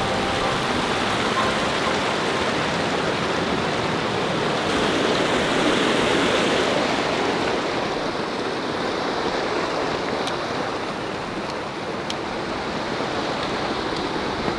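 Mountain stream rushing in a steady hiss of running water, swelling slightly about halfway through.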